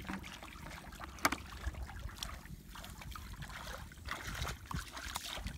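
Hands splashing and sloshing in shallow muddy water while groping for fish, in irregular small splashes, with one sharp click about a second in.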